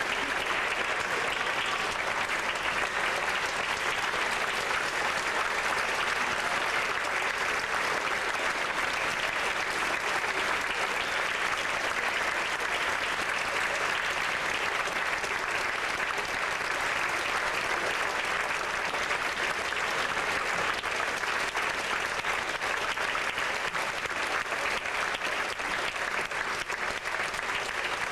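Large audience applauding steadily for the opera singers' curtain calls, a dense, even clatter of many hands that keeps up without a break.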